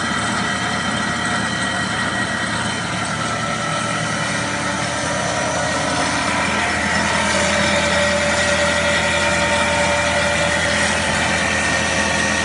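Double-axis four-knife CNC wood lathe running and cutting a wooden spindle blank: a steady machine whine with several held tones over the hiss of the knives shaving wood, getting a little louder about halfway through.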